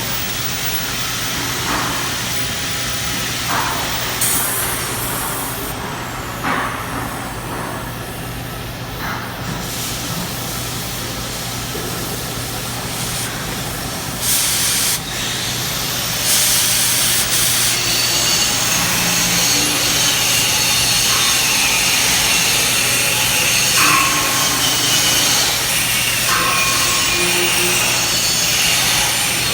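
Oxyacetylene cutting torch hissing steadily over a constant low shop hum, growing louder about halfway through.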